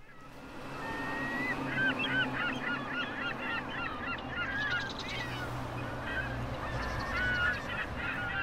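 A flock of geese honking, many short calls overlapping, over a low steady rumble.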